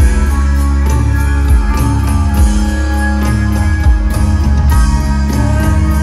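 Live rock band playing loudly: electric guitar over bass and a steady drum beat, with no vocals in this passage.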